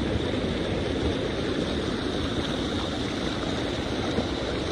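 Steady rushing of floodwater flowing down a desert wash, an even noise without breaks.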